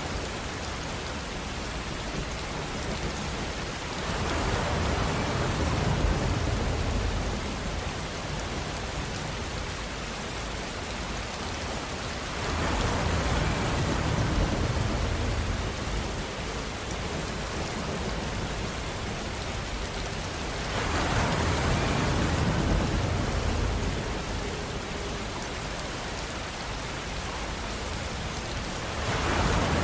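A steady rushing noise, like rain or surf, that swells louder for a few seconds about every eight seconds, four times in all.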